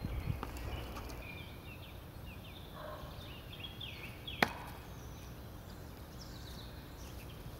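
A thrown steel throwing knife striking and sticking in a wooden target with a single sharp knock about four and a half seconds in. Small birds chirp beforehand, over a low wind rumble.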